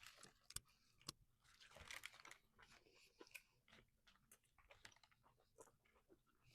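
Faint chewing and crunching of a fried-chicken snack wrap being eaten, a scatter of small crisp clicks and soft mouth noises.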